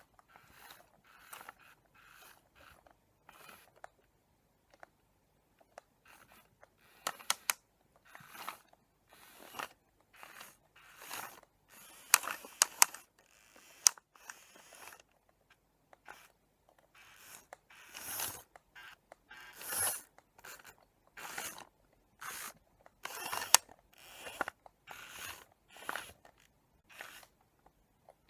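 Tomy remote-control Eevee toy's small geared motors whirring and clicking in many short, irregular bursts as it is driven and turned.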